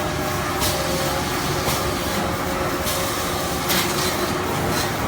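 Automatic band saw toilet-roll log cutter running: a steady machine hum with several held tones, broken by a short hiss about once a second.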